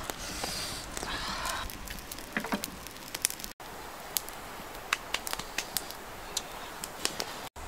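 Wood cooking fire crackling, with irregular sharp pops. A brief rustling at the start as the cloth-covered pot is handled.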